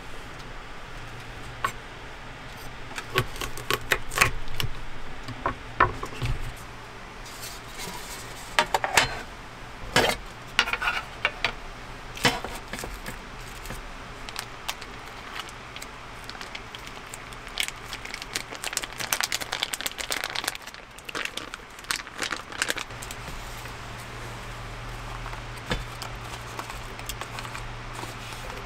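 Hand food preparation: a kitchen knife knocking and scraping on a wooden cutting board in the first few seconds, then irregular clicks and clinks of an aluminium mess tin, its lid and chopsticks, over a low steady hum.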